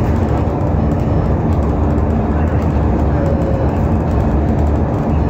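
Alexander Dennis Enviro500 MMC double-decker bus running at a steady speed, heard from inside the cabin: a steady engine drone mixed with road and body noise, with no change in pitch.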